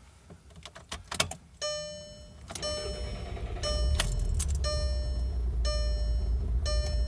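Keys jingling and clicking in the ignition of a 2012 VW Jetta GLI, then a dashboard warning chime ringing about once a second while the 2.0-litre turbo four-cylinder cranks and catches, running with a low rumble. This is a restart after the warm engine stalled, part of an intermittent no-start and stalling fault.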